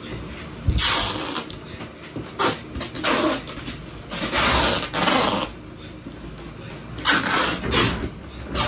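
Clear packing tape pulled off the roll in several screechy strips and pressed onto a cardboard box, each pull lasting under a second, with a thump against the box at the first.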